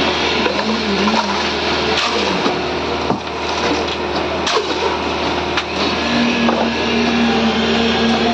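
A concrete mixer's engine running steadily, with a wavering tone and a few sharp knocks.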